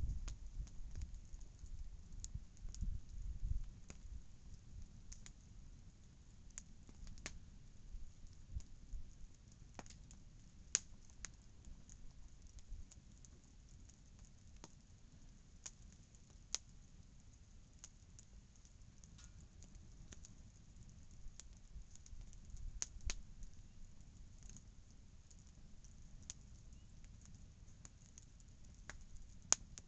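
Wood campfire crackling faintly, with sharp pops at irregular intervals. There is a low rumble during the first few seconds.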